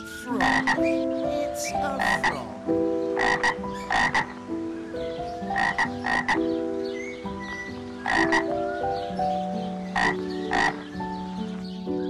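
Frog croaking: short, sharp croaks, mostly in pairs, repeating about every two seconds.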